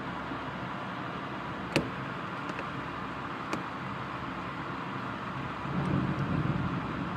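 Steady hiss of heavy thunderstorm rain, with a sharp click about two seconds in and a fainter one midway. A low rumble swells near the end.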